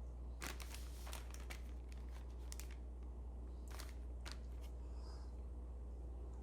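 Wet wipe crinkling and rubbing over a leather test panel to wipe off ballpoint and marker-pen marks, in three short spells of scratchy rubbing over a steady low hum.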